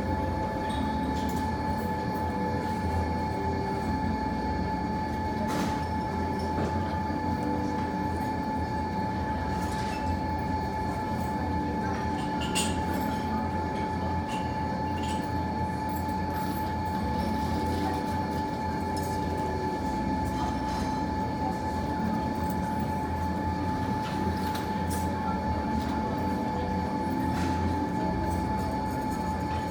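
Fireplace fire crackling with scattered short pops. Underneath runs a steady low rumble and a constant even hum, like a room's ventilation machinery.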